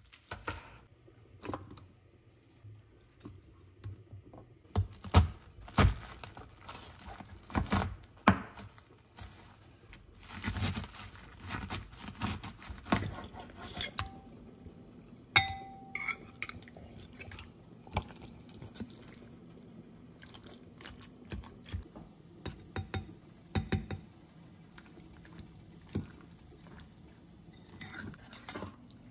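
Kitchen food-prep sounds: a knife chopping green onions on a bamboo cutting board, then a metal fork stirring and scraping a mixture in a ceramic bowl. Irregular knocks and clicks, with one short ringing clink about halfway through.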